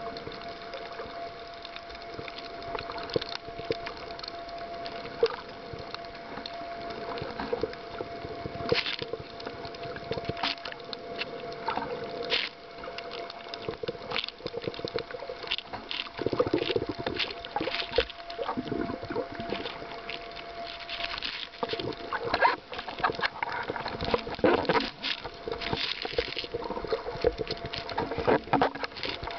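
Underwater sound picked up by a snorkeler's camera: muffled water sloshing and bubbling with many scattered clicks and crackles, over a faint steady tone. The sloshing grows busier and louder from about halfway through.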